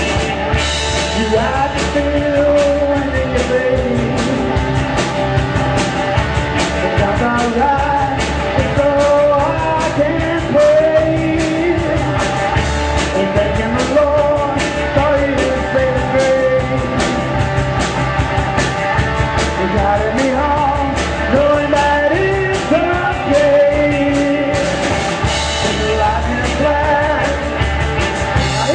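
Rock band playing a song with a steady drum beat, with singing over it.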